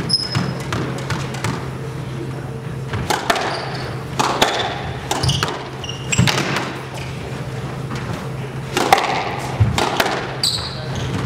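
Squash rally on a glass-walled court: the ball smacking off racquets and walls at irregular intervals of roughly a second, with shoes squeaking on the hardwood floor between shots.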